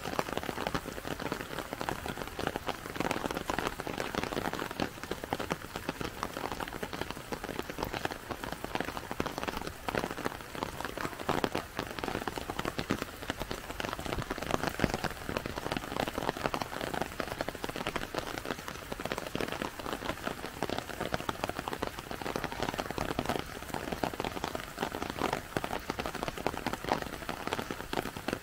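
Steady rain falling, with many small drops striking surfaces close by.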